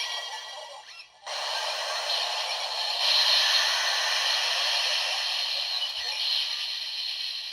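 DX Ark-One Driver toy belt playing the Ark-One Progrise Key's electronic music and sound effects through its small speaker. It sounds thin, with no bass, and breaks off briefly about a second in before starting again.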